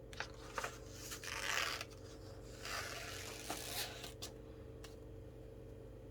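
Paper rustling as pages or sheets are handled: two longer rustles with a few light taps and clicks around them.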